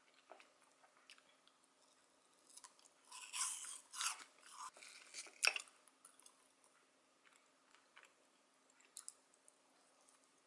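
Close-up crunchy chewing of a mouthful of yogurt with fruit and granola, loudest in a run of crunchy bites from about three to five and a half seconds in, with a few small clicks afterwards.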